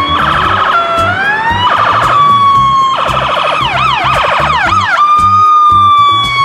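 Toy ambulance's electronic siren switching between patterns: a fast warble, a rising wail, quick up-and-down sweeps, and a steady tone near the end. A steady beat of background music plays underneath.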